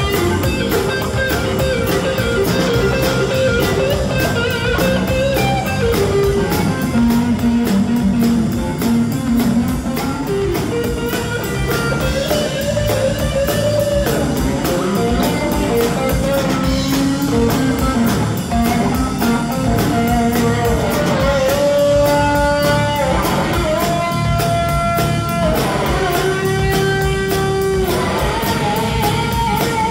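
Live blues-rock band playing an instrumental passage: electric guitar lines over electric bass and a drum kit. Near the end the guitar holds long notes that bend in pitch.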